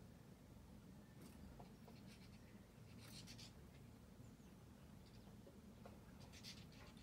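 Near silence, broken by a few short, faint scratchy flutters, about a second in, about three seconds in and near the end: small birds' wings as they fly to and from a garden seed feeder.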